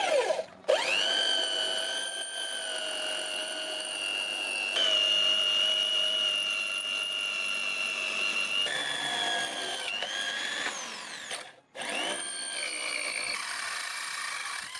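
Electric hand drill whining steadily as a twist bit drills through a flat iron bar. It stops briefly just after the start and again near the end, spinning back up each time, and its pitch dips for a moment under load.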